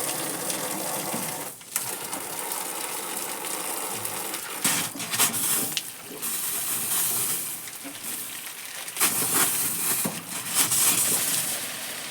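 Water pouring from a pipe and splashing, with louder bursts of splashing about five seconds in and again near nine to eleven seconds in.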